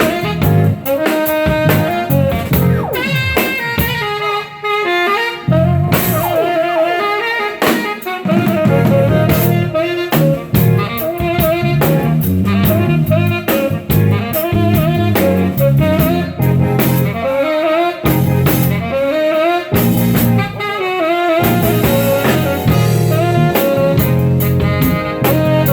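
A band playing a jazz-style tune at a sound check, a saxophone-like lead melody over bass and drum kit.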